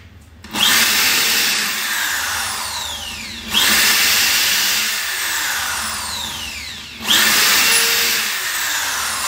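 DeWalt DWD024 750-watt 13 mm hammer drill boring into a block of wood in three spells, a few seconds apart. Each starts with a sudden jump in level, and the motor's pitch sinks over about three seconds as the bit bites into the wood.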